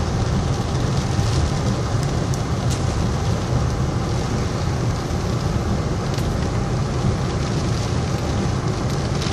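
Steady rumble of a car driving slowly through rain-flooded streets, heard from inside the cabin, with the hiss of rain and wet tyres over it.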